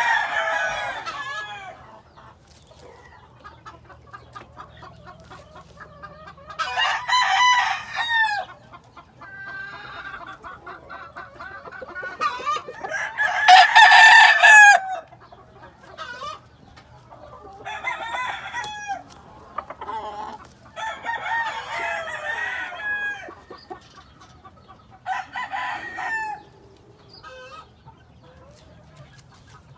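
Roosters crowing, about six crows one after another with short gaps, some louder and nearer than others, the loudest about halfway through.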